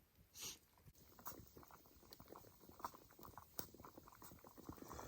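Wood campfire crackling faintly, with small irregular pops and clicks.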